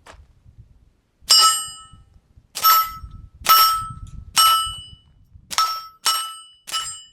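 Seven suppressed .22 LR shots from a Tactical Solutions PacLite pistol fitted with an Axiom suppressor, fired about a second apart, each followed by a bright metallic ring that fades within about half a second, typical of a bullet striking a steel target.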